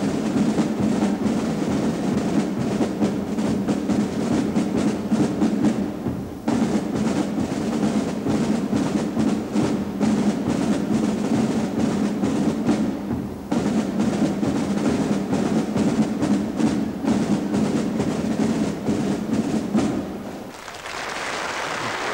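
A drum and brass marching band (drumfanfare) playing, with drums to the fore over held brass notes and two short breaks. The music stops about twenty seconds in and applause starts.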